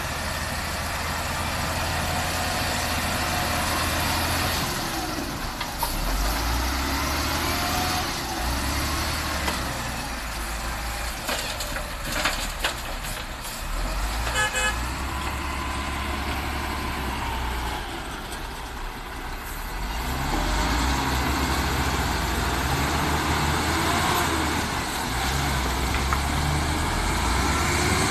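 Heavy diesel engines of a wheel loader and a dump truck running, with the loader's engine revving up and down as it works its load of sand. There is some clatter in the middle and a brief beep about halfway through.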